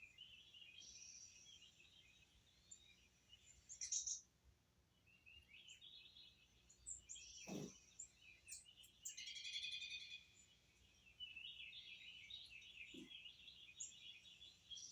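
Faint chirping of small birds, many short calls overlapping, with a single soft knock about halfway through.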